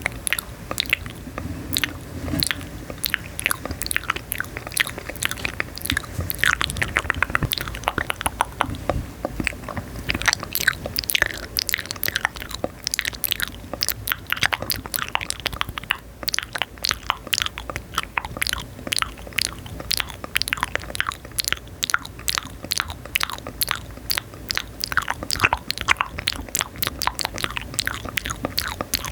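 Rapid crisp clicks and crackles, many a second, going on without a break.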